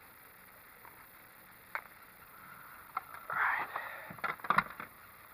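Handling noise as metal fishing pliers on a coiled lanyard are used and moved: a single click, a brief rustle past the middle, then a quick run of sharp clicks and knocks near the end.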